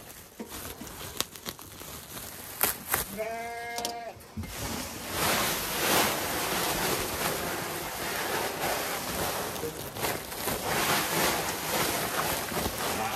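A few sharp clicks, then a single bleat about three seconds in; from about four and a half seconds on, a steady rushing hiss of crushed barley pouring out of a sack onto the feed.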